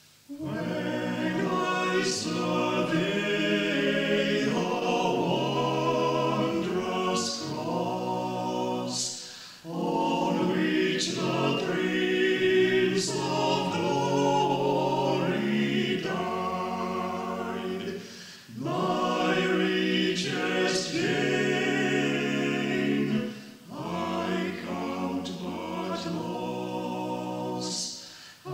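Amateur choir singing without accompaniment, in several phrases with short breaths between them, heard through an old reel-to-reel tape recording.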